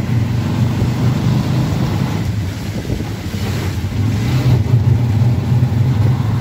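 Auto-rickshaw engine running with a steady low, throbbing drone, heard from inside the open cab while riding on a rain-soaked road, with a hiss of wind and road noise over it.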